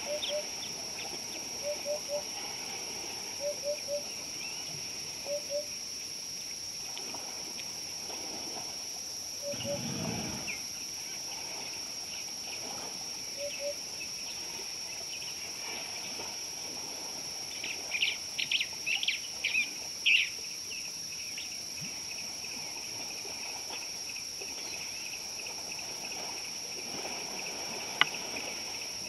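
Outdoor bush ambience of wild birds calling: a soft, low two- or three-note call repeated about every two seconds, then a short burst of sharper, higher calls about two-thirds of the way through, over a steady high-pitched hum.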